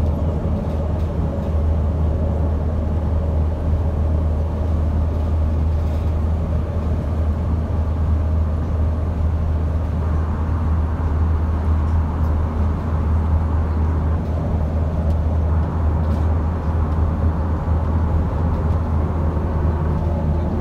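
Steady low rumble of a car on the move, heard from inside the cabin: engine and road noise with no change in pace.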